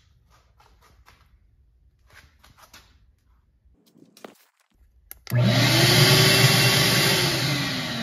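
Faint handling clicks, then about five seconds in a shop vacuum motor switches on, its whine rising as it spins up, and runs loud and steady through the dust hose. Its pitch sags again near the end.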